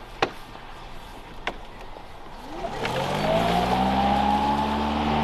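Toro 60V Flex-Force battery lawn mower: two sharp clicks, then about two and a half seconds in its electric motor starts and the blade spins up with a rising whine, settling into steady running as it begins cutting grass with the bagger on.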